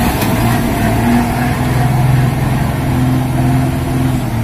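Heavy diesel engines running steadily under load, a low, even engine note with small swells: a Mitsubishi Fuso tanker truck stuck in mud and the Komatsu PC200 excavator pushing it out.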